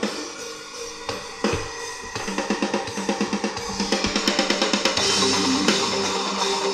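Heavy metal song played through a Raegr AirDrums 400 mini Bluetooth speaker and picked up by a condenser microphone: a drum kit with cymbals, breaking into fast, steady drum hits about two seconds in.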